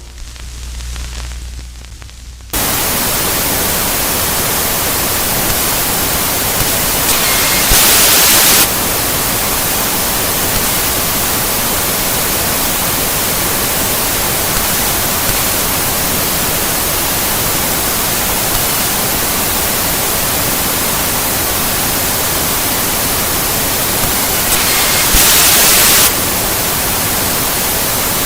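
Television static: a loud, even hiss of white noise that cuts in abruptly about two and a half seconds in, after a low hum and faint hiss, and holds steady, with two brief brighter, louder surges, one about eight seconds in and one near the end.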